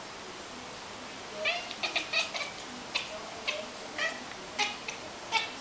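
Toyger cat chattering at birds: quiet at first, then from about a second and a half in a quick, uneven run of short, high chirps.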